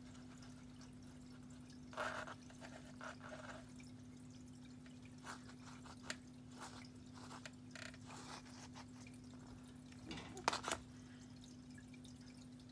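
Light, scattered taps and knocks of a kitten batting at a toy mouse, with a louder flurry of taps near the end, over a steady low hum.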